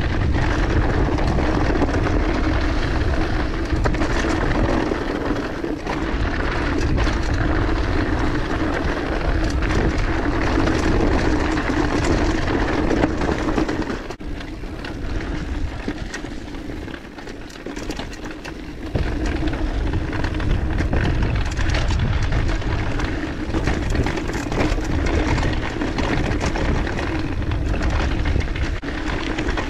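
Mountain bike rolling fast along dirt singletrack: a steady rumble of knobby tyres on dirt and wind noise, with many small knocks and rattles from the bike over bumps. It goes quieter for a few seconds about halfway, then picks up again.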